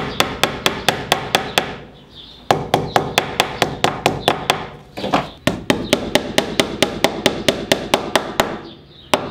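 Small hammer driving track nails through model railway track into a wooden baseboard: quick light taps, about five or six a second, in three runs with short pauses between them.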